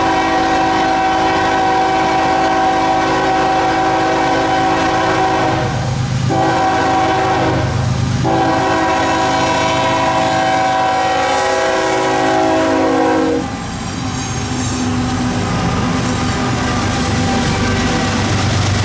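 Freight train air horn blowing as the train approaches: a long blast, a short blast, then a long blast that stops about 13 seconds in. After it the GE Evolution Series diesel locomotives are heard working up the grade, with the rumble and clatter of the train on the rails.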